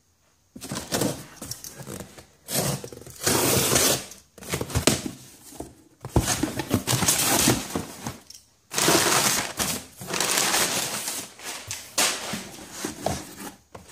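A cardboard shipping box being opened: packing tape torn from the box, the flaps folded back, and crumpled brown packing paper rustled and pulled out. It comes as a run of scratchy, rustling bursts starting about half a second in.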